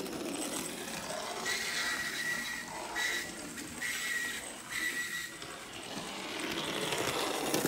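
Vintage Playart model locomotive running on track, its motor and gears giving a loud continuous whirring with a high squeal that comes and goes several times. The noise is still there after the motor contacts were bent flat; the owner had suspected the contacts scraping.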